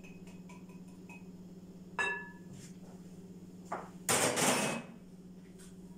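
Kitchenware being handled while batter is mixed in a ceramic bowl: one sharp ringing clink about two seconds in, like a cup knocking the bowl's rim, then a short louder scrape or rustle a couple of seconds later.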